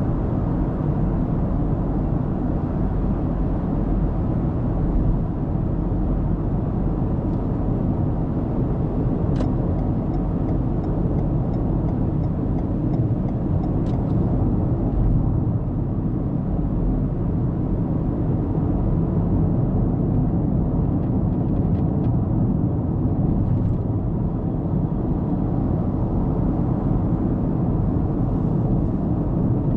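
Steady road and tyre noise with engine hum from a moving car, heard from inside the cabin through a dashcam microphone. About ten seconds in comes a short run of faint, evenly spaced ticks.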